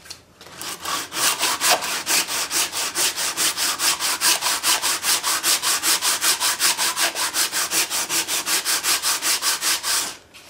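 Sandpaper on a wooden hand sanding block scraping back and forth across the flat, epoxy-coated face of a homemade water-cooled Briggs & Stratton engine casting. It makes an even rasping rhythm of about four or five strokes a second, which stops near the end.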